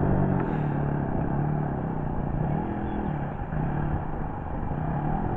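Radio-controlled model Citabria's engine running on the ground, its note rising and falling a few times as the throttle is worked.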